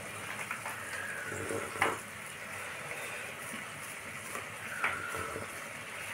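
A person sipping chicken soup from a mug: two short slurps, about two seconds and five seconds in, over a steady faint hiss.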